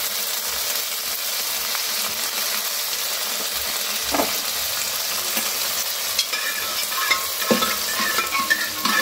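Ginger-fennel paste and whole spices (bay leaf, dried red chilli, panch phoron, hing) sizzling steadily in hot mustard oil in a wok: a dal tempering being fried and stirred, with a couple of knocks against the pan.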